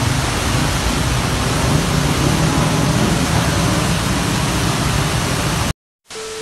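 Water jetting up from a burst pipe in the street, a loud steady rushing spray. Near the end it cuts off abruptly, and a short TV-static buzz with a steady tone begins.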